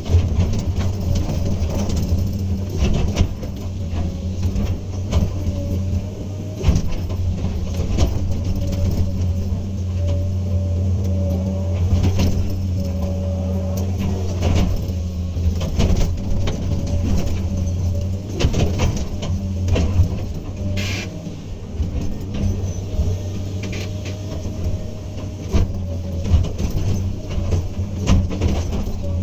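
Hydraulic excavator's diesel engine running steadily under work, with scattered short knocks and clanks.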